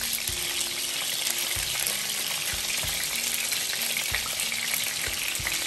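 Mackerel pieces and roe shallow-frying in hot oil in a frying pan: a steady sizzle with fine crackling.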